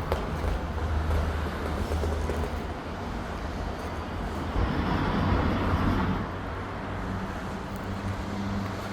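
A steady low machine hum with outdoor noise over it, swelling louder for a second or two a little past the middle.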